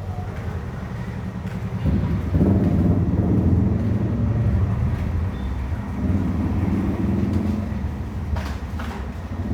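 A motor vehicle engine running, a steady low rumble that grows louder about two seconds in, with a couple of faint clicks near the end.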